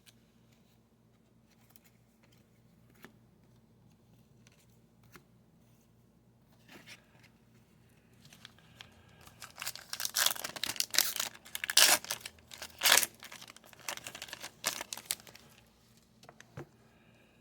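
Foil wrapper of a trading card pack being torn open and crinkled, in a run of ripping and crackling that starts about eight seconds in and lasts several seconds. Before it there are only a few faint clicks of cards being handled.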